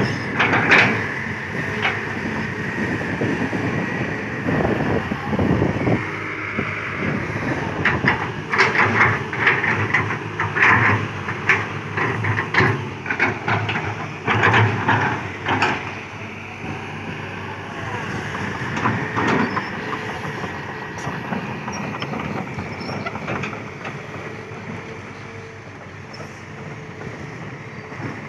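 Kobelco SK200-8 hydraulic excavator working: its diesel engine and hydraulics run steadily. From about 8 to 16 seconds in come a busy run of sharp metal clanks and squeals, which then ease off into a quieter, steady running.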